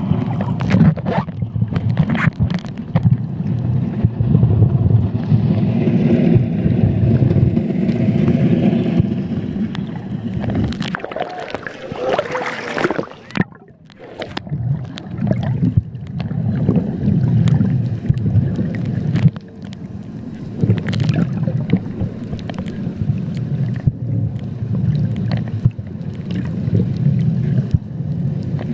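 Muffled underwater noise: a dense low rumble with bubbling and scattered clicks. About halfway through, a short rush of higher noise comes, then the sound drops away for a moment before the rumble returns.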